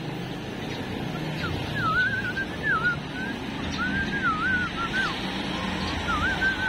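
Someone whistling a wavering tune in three short phrases, over a steady low rumble of traffic.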